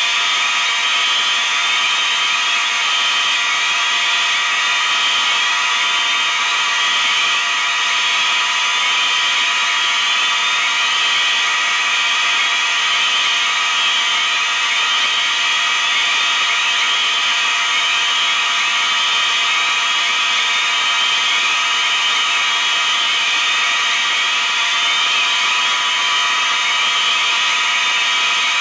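About three dozen fire alarms sounding at once, mostly mechanical horns with some electronic sounders: a loud, unbroken blare of many overlapping tones.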